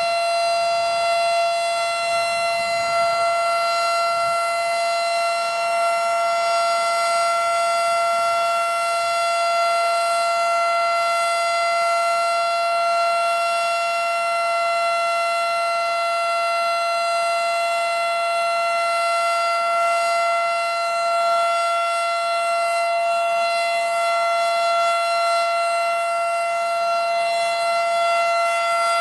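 Federal Signal Model 5 electromechanical outdoor warning siren sounding at full speed, holding a loud, steady pitch with no rise or fall: a steady alert tone during its monthly test.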